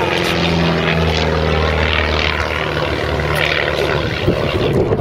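Propeller engine of a small single-engine aerobatic plane droning steadily overhead during its display, the pitch shifting slightly as it manoeuvres.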